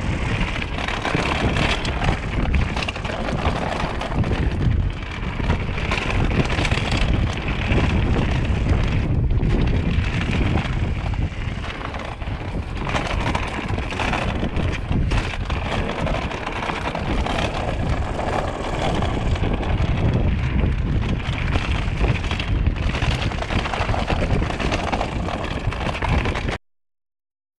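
Mountain bike riding down rocky dirt singletrack: wind buffeting the microphone over tyre noise and the clatter of the bike over rocks and roots. It cuts off abruptly near the end.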